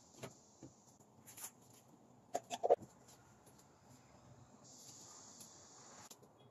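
Mostly quiet room tone with a few faint, scattered clicks, a small cluster of them about two and a half seconds in, and a faint hiss near the end.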